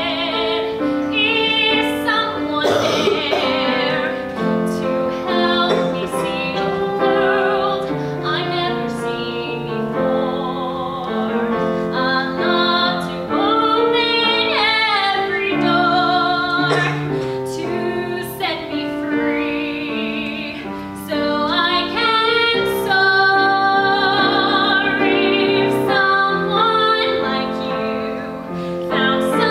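A young female soloist singing in a classical, operatic style with a pronounced vibrato, accompanied by piano.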